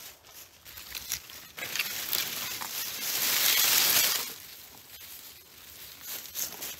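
Footsteps crunching through dry pine needles, leaves and twigs on a forest floor, a crackly rustle of small snaps, with a louder rustling swish of brush about three to four seconds in.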